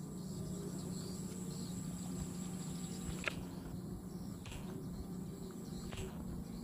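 Evening insect chorus, crickets chirring low and steady, with a single sharp click a little past three seconds in and a fainter click near the end.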